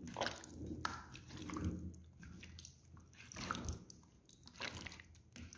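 Faint, irregular wet squelching of a bare hand squeezing and turning chicken pieces in a thick yogurt-and-spice marinade with a little oil, in a plastic bowl.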